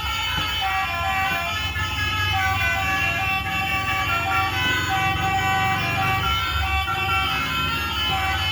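Multi-tone 'telolet' bus horn playing a tune in stepped notes over a low, steady engine rumble.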